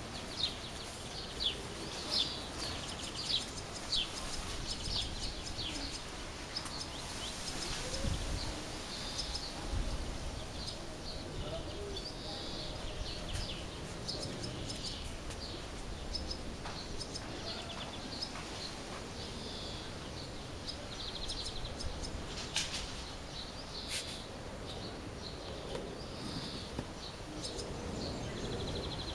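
Barn swallows calling: short high chirps and twittering, with a few buzzy, rattling notes. The first few seconds hold a run of evenly spaced single chirps.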